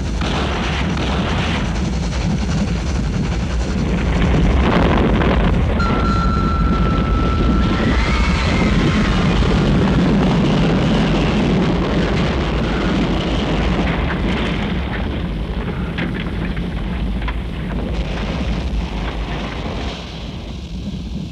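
Film sound effects of a steam train crashing off a collapsing trestle bridge: a continuous heavy rumble and roar, loudest in the middle and easing near the end, with a single held high tone lasting about two seconds, about six seconds in.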